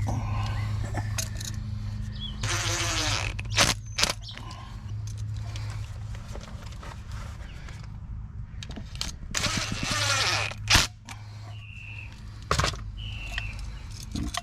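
Wires and hand tools being worked into an outdoor electrical outlet box: scraping and handling noise with a few sharp clicks, over a steady low hum.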